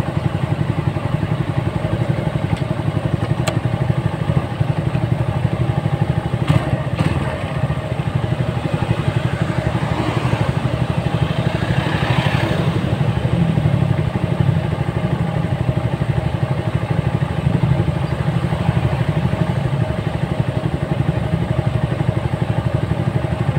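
Motorcycle engine running steadily while riding. A rush of noise swells and fades about halfway through.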